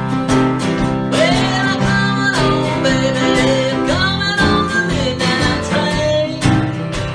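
Piano and acoustic guitar playing an upbeat blues/boogie-woogie number, a steady rhythmic accompaniment under a lead line whose notes slide in pitch.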